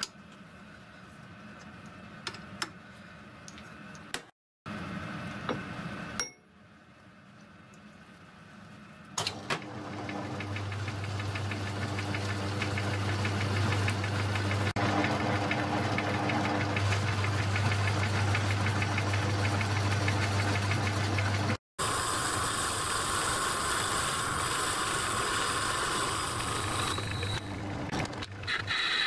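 Engine lathe with a four-jaw chuck. It starts with a few light metal clinks as the work is set up, then runs from about ten seconds in with a steady low hum while the chuck spins. Later the running changes to a harsher, brighter noise.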